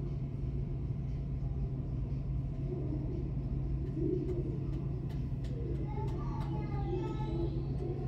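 Aquarium room tone: a steady low hum and rumble with indistinct visitors' voices, and a higher-pitched voice joining about six seconds in.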